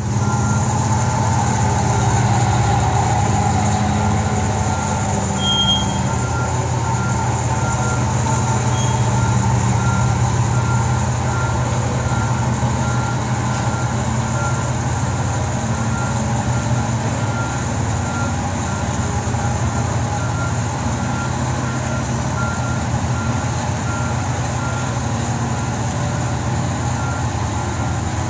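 Propane-powered Hyster forklift engine running steadily, with a forklift warning beeper sounding about once a second.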